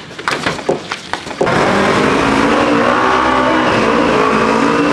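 Sharp blows and scuffling for about a second and a half, then a car engine comes in suddenly and runs loud and steady, its pitch shifting a little.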